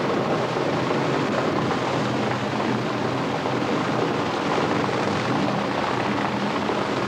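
High-pressure fire hose jet spraying water onto a burning structure: a steady, loud rushing hiss with a faint low hum underneath.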